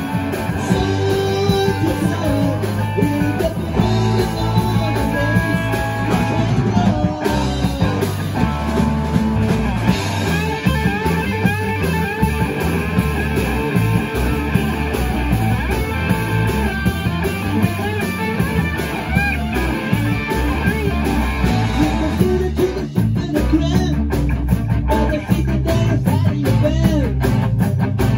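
A rock band playing a rock-and-roll number live: electric guitars and bass guitar over drums, with a man singing lead.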